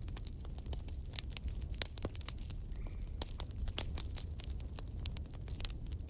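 Wood fire crackling: burning logs and embers giving off many sharp, irregular pops and snaps, several a second, over a steady low rumble.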